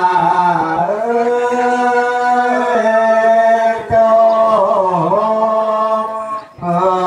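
A single male voice chanting a ritual chant into a microphone, holding long notes that step up and down in pitch. There are short breaks for breath about four and five seconds in, and again near the end.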